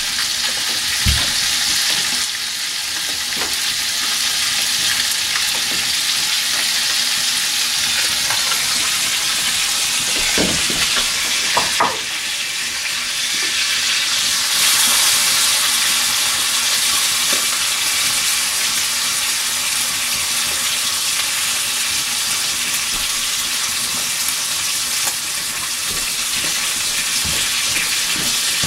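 Venison heart sizzling as it fries in a cast-iron pan over an open fire: a steady hiss that gets louder about halfway through, with a few brief knocks.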